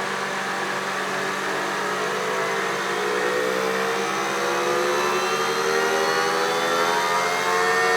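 Electric air-conditioning compressor in an electric-converted 1988 Honda Prelude running up in speed: a whine of many tones rising steadily in pitch and getting a little louder. It sounds wrong to the owner, who thinks the compressor was a dud from the factory.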